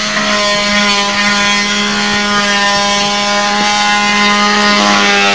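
Portable wet/dry shop vacuum running, its motor giving a steady hum with a constant whine as it sucks out a locker through its hose.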